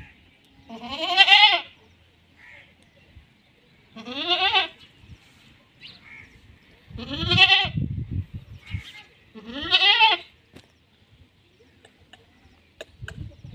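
Goat bleating four times, about every three seconds, each bleat a short quavering call.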